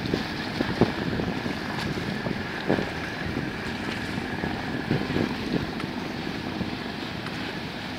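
Wind buffeting the microphone in gusty thumps over a steady rush of boat engines and wash on the water.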